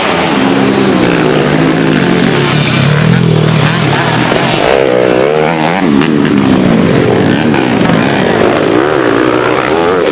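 Two-stroke Kawasaki Ninja 150 racing motorcycle engines running hard. The engine pitch rises and falls over and over as the bikes rev and shift, with more than one engine note heard at once at times.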